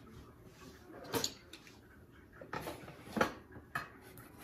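Objects being handled and lifted out of a cardboard box: a few light knocks about a second in and again past three seconds, with a short rustle of wrapping in between.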